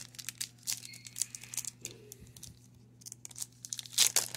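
Foil wrapper of a 1996 Pinnacle baseball card pack crinkling as it is handled and torn open, in scattered crackles, loudest about four seconds in.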